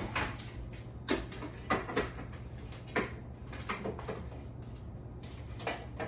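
Kitchen clatter: a series of short knocks and clunks, about eight in six seconds, from cupboard doors and containers being handled, over a steady low hum.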